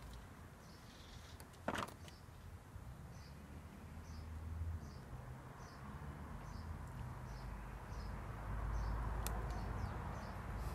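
A small bird calling in short high chirps, about two a second, over a steady low rumble, with one sharp click about two seconds in.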